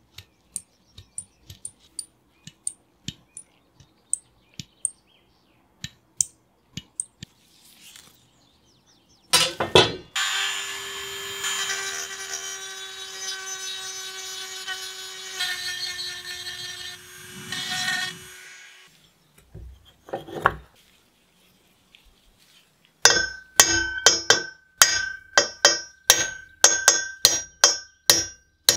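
Light clicks of handling, then a rotary tool with a small grinding stone whines steadily for about eight seconds as it grinds down a rivet head on a brass bayonet grip, its pitch dipping slightly partway through. Near the end, a hammer strikes a pin punch about three times a second, each blow ringing, to drive the rivet out.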